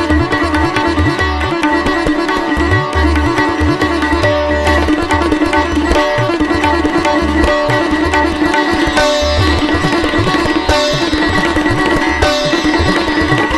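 Background music: plucked-string instrumental over a steady drone and a regular low beat.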